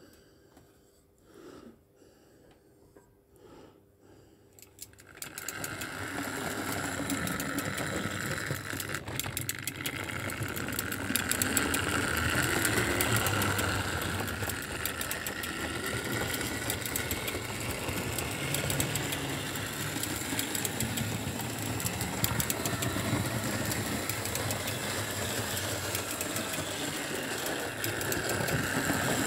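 Model railway locomotive running along the layout: a steady electric motor whir with the wheels rattling over the track joints, starting about five seconds in.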